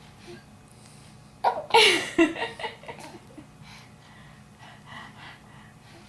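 Four-month-old baby giggling: a loud burst of laughter about a second and a half in, broken into short pulses, then a few fainter ones.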